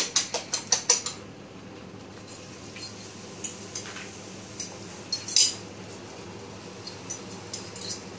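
A fork clinking rapidly against a china bowl for about the first second, then a few scattered clinks and scrapes of the fork on the bowl as the last of the beaten egg is pushed out, the loudest about five seconds in. Underneath is the steady hum of the kitchen range-hood exhaust fan.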